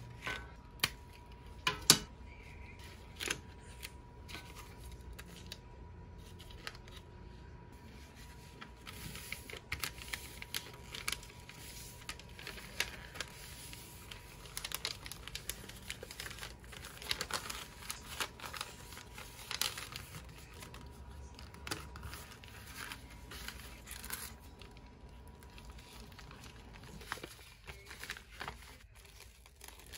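Tissue paper being folded and crinkled by hand while an order is wrapped, with irregular rustling and crackling and a few sharp clicks near the start.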